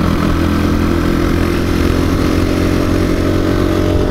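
Single-cylinder four-stroke engine of a KTM 350 EXC-F dual-sport dirt bike running steadily while being ridden along a sandy trail, heard from the rider's helmet.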